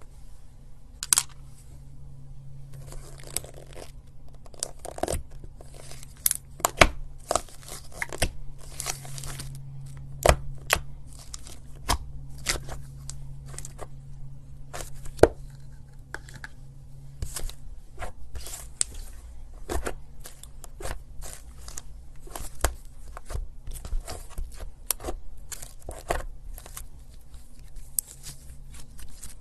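Slime being worked by hand, giving irregular crackling pops and clicks over a steady low hum.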